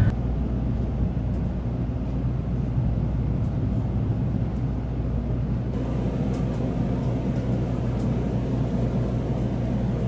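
Steady low rumble and hum of a Shinkansen bullet train heard from inside the passenger car while it runs at speed. About six seconds in the sound turns slightly brighter, with a few faint clicks over the hum.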